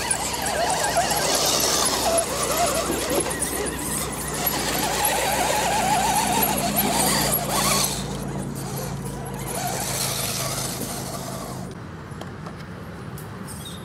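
Electric motors and geartrains of RC scale crawlers whining as they climb a muddy bank, the pitch wavering with the throttle. The sound drops quieter near the end.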